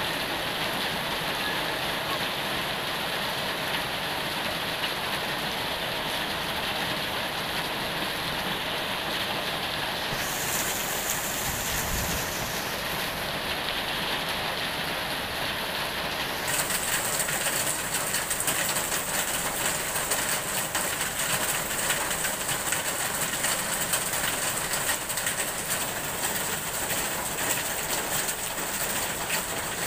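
Heavy tropical rain pouring steadily onto dense foliage, an even hiss of countless drops on leaves. About halfway through it grows louder and hissier.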